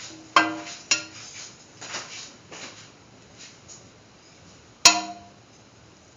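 A cooking spoon clinking against a pan of mung bean and vermicelli soup as it is stirred while heating: two sharp ringing clinks about half a second apart at the start and a louder one near the end, with softer scraping between.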